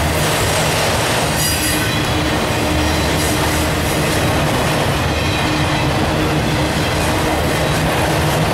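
Autorack freight cars rolling past, a steady rumble of steel wheels on rail. About a second and a half in there is a brief high wheel squeal.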